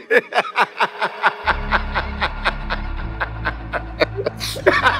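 A man laughing and snickering over background music with a steady, quick beat; a deep bass line comes in about a second and a half in.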